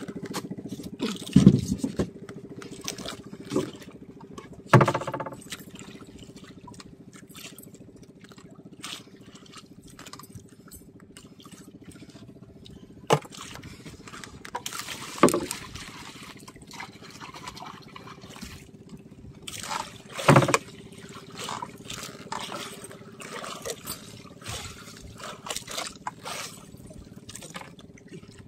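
Water sloshing and trickling against the hull of a wooden outrigger fishing boat under a faint steady hum. Four loud knocks on the hull come about 1.5, 5, 15 and 20 seconds in, with smaller clicks and scrapes between.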